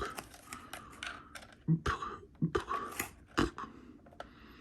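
Irregular clicks and taps of the plastic Kidde P4010ACS smoke alarm being handled, starting with a sharp knock.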